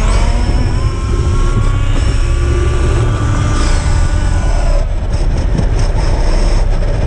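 RC car running fast, heard from a camera mounted on it: a motor whine whose pitch rises and falls with the throttle over a heavy, steady rumble of wind and road noise.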